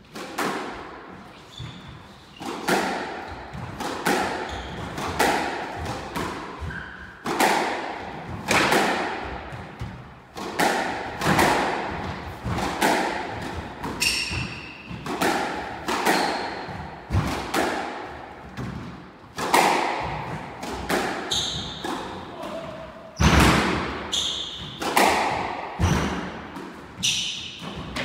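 Squash ball being struck by rackets and thudding off the court walls in a long rally, one impact every half-second to second, each ringing in the enclosed court. Short high squeaks of court shoes on the wooden floor come in between, around the middle and near the end.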